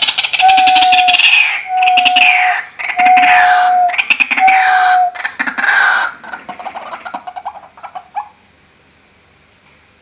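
White-breasted waterhen calling: a loud series of repeated calls, about one every second and a bit, growing weaker after about six seconds and stopping just past eight seconds.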